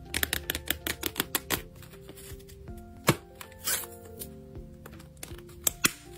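Hands handling a faux-leather wallet with a metal kiss-lock clasp: a quick run of small clicks and taps in the first second and a half, a sharper click about three seconds in, and a few more clicks near the end. Soft background music plays throughout.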